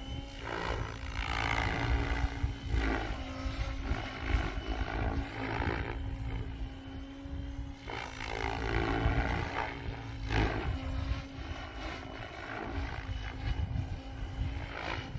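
Goosky RS7 RC helicopter in flight: a steady rotor-and-motor hum with loud blade whooshes that swell and fall in pitch every few seconds as the helicopter is thrown through flips, over low wind rumble on the microphone.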